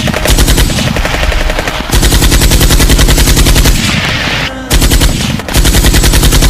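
Machine-gun fire sound effect: several long bursts of rapid automatic fire, broken by short pauses.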